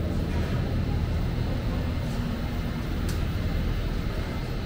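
An engine running steadily with a low drone, and a single sharp click about three seconds in.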